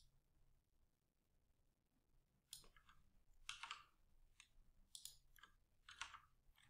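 Faint, scattered clicks of computer keys and a mouse button being pressed, starting about two and a half seconds in, over near-silent room tone.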